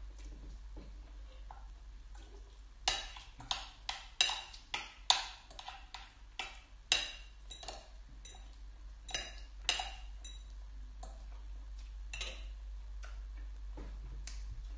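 Metal fork and spoon clinking against a glass bowl while scooping rice porridge: a dozen or so sharp, irregular clicks starting about three seconds in and stopping about ten seconds in.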